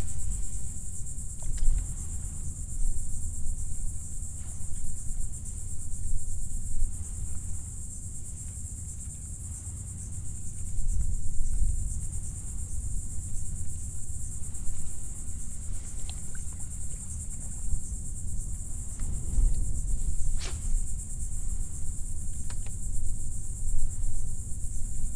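A steady, high-pitched insect drone from the mangroves runs throughout, over an uneven low rumble of wind on the microphone. A few light clicks come late on.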